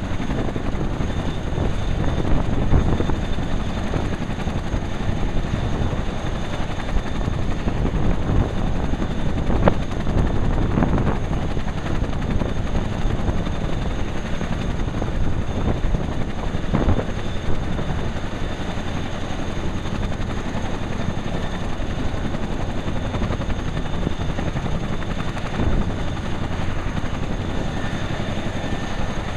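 Boeing CH-47 Chinook tandem-rotor helicopter running on the ground during warm-up: the steady noise of its rotors and twin turboshaft engines, with a thin steady high whine over it.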